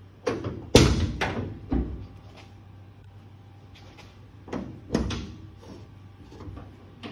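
Metal clunks and knocks from a 1967 Chevelle's hood being unlatched and handled. There is a cluster of sharp knocks in the first two seconds, the loudest about three-quarters of a second in, then two more clunks about four and a half and five seconds in.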